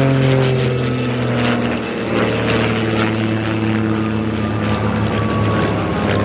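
Van's RV propeller airplanes passing low one after another, their piston engines droning and dropping in pitch as each goes by.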